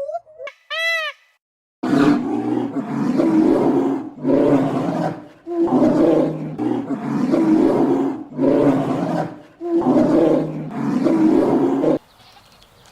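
A large animal roaring over and over: about seven loud, rough calls each about a second long, evenly spaced, stopping about a second before the end. A short rising-and-falling tonal call comes just before them.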